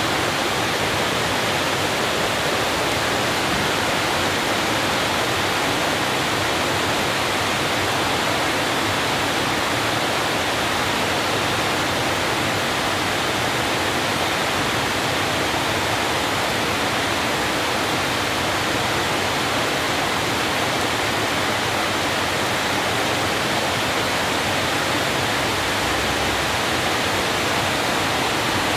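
Steady heavy rain, an even unbroken hiss that does not change throughout.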